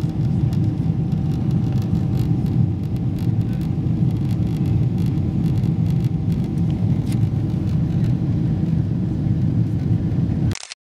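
Steady low roar of a Boeing jet airliner's cabin during the climb after take-off: engine and airflow noise heard from a window seat, with a faint steady whine in the first part. The sound cuts off suddenly near the end.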